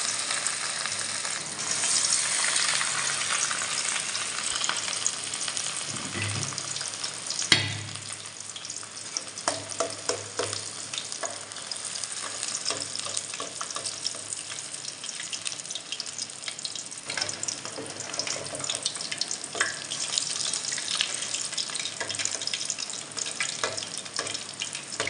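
Beef chapli kababs frying in hot oil in an aluminium karahi: a steady sizzle full of small crackles. A metal spatula works the patties, and there is one sharp knock about seven seconds in, after which the sizzle thins into more separate crackles.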